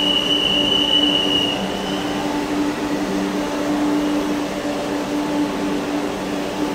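Vande Bharat Express electric trainset at the platform: a steady low hum over a noisy rumble, with a high-pitched whine for the first second and a half.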